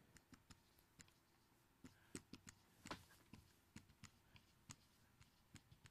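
Faint dry-erase marker writing on a whiteboard: a string of short, irregular taps and strokes as letters are drawn.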